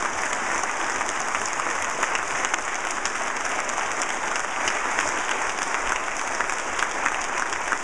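A large audience applauding, many hands clapping together at an even, sustained level.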